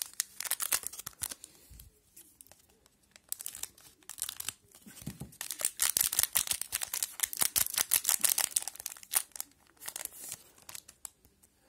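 Hockey card pack wrapper being torn open and crinkled by hand: dense crackling in two stretches, a short one at the start and a longer one from about three seconds in until near the end.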